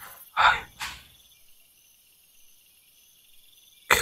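Crickets chirping steadily. About half a second in comes a loud short noisy burst, followed by a weaker one, and near the end a sudden sharp sound starts.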